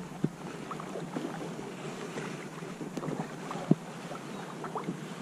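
Kayak paddling on a river: light splashes and water drops off the paddle over a steady wash of water and wind. There are two sharper plops, one just after the start and a louder one about three-quarters of the way through.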